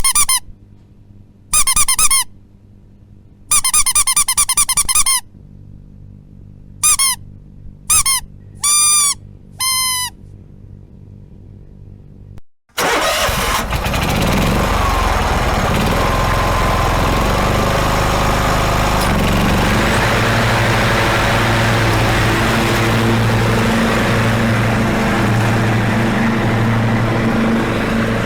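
A dog's short, high-pitched yelps and whines, each rising and falling, come in scattered bursts with a quick run of them partway through. About twelve seconds in the sound cuts to a motor vehicle engine running steadily.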